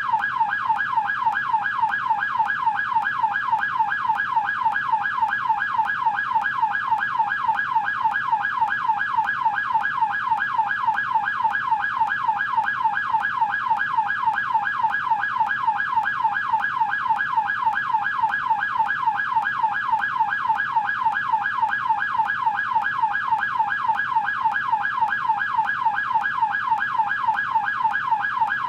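American police car siren in yelp mode, its tone sweeping rapidly up and down in a fast, even, unbroken cycle.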